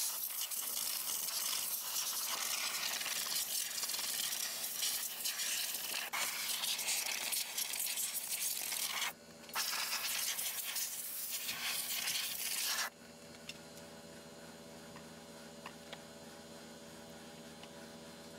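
Compressed air hissing from a tool on an air hose, played over steel wheels. It breaks off briefly about nine seconds in, then stops suddenly about thirteen seconds in, leaving only a faint steady hum.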